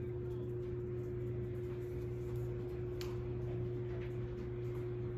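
Steady low background hum with a constant faint whine over it, and a light tick about three seconds in and a fainter one about a second later as a paint-loaded leaf is handled.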